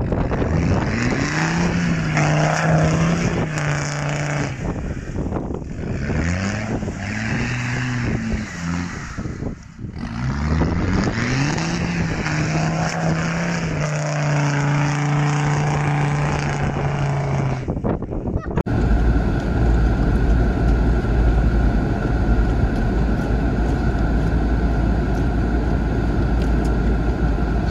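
Land Rover Discovery Td5's five-cylinder turbodiesel revved hard as it churns through deep mud: the engine note rises and holds three times, the last surge held for several seconds. About two-thirds in, the sound cuts abruptly to a steady low engine drone.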